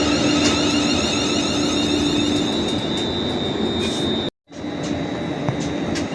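A train running past, a steady loud rush with a steady high whine over it. The sound cuts out completely for a moment about four seconds in, then carries on.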